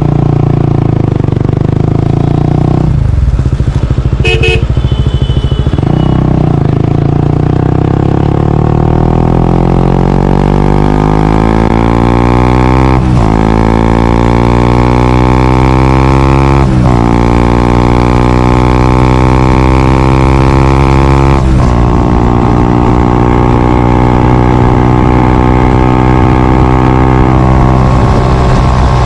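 Honda CBR125R/150R single-cylinder engine running through a Yoshimura R77 full exhaust system. It holds a steady note, dips briefly, then pulls away, its pitch climbing and falling back at three upshifts before settling into a steady cruise.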